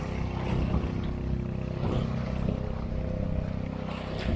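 A small boat's engine running with a steady drone.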